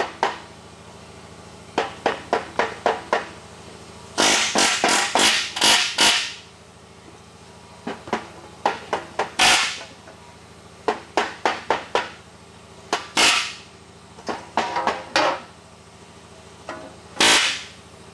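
Workshop tool sounds from aluminium frame assembly: clusters of sharp taps and knocks, broken by short loud bursts of noise. The bursts come as a quick run about four seconds in, then one roughly every four seconds after that.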